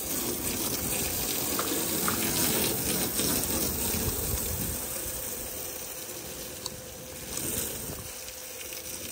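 Water spraying from a hose in a steady rush, splashing onto wet pavement, a little louder in the first half.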